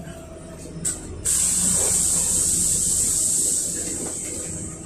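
A loud, steady hiss switches on abruptly about a second in and fades away near the end, over the low running rumble of a LiAZ 5292.67 city bus under way.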